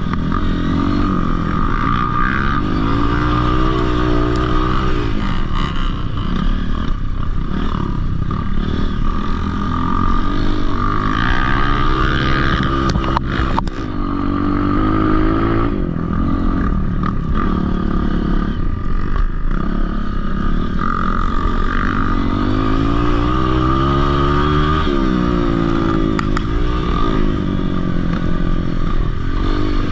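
Dirt bike engine revving up and dropping back over and over as it is ridden around a dirt track, with a steady high whine underneath. A sharp click comes about halfway through.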